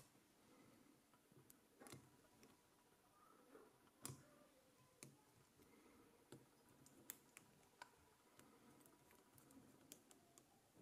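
Faint, scattered small clicks and ticks as fingers work at the face of a lock being taken apart, with near silence between them.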